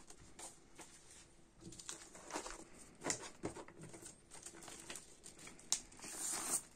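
Paper rustling and handling, with light taps, as a vinyl LP in a white paper inner sleeve is picked up. Near the end, a brief sliding hiss as the record is drawn out of the sleeve.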